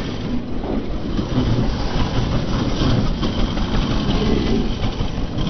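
Minibike engine running while riding over a sandy dirt track, mixed with heavy wind rush on a chest-mounted GoPro's microphone.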